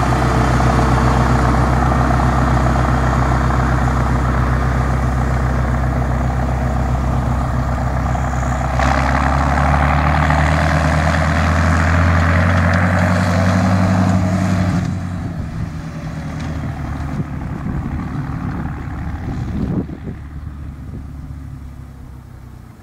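Fiat 110-90 tractor's six-cylinder turbo diesel engine working steadily under load while it pulls a Krone loader wagon that is picking up grass for silage. The engine note rises a little past the middle. About two-thirds of the way through the sound drops off sharply, then fades as the tractor moves away.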